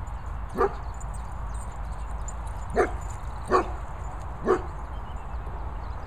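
A dog barking in play: four short single barks, one about half a second in and three more close together in the middle.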